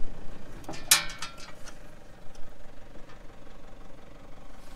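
Quad bike engine idling steadily, with a brief rattling clatter about a second in.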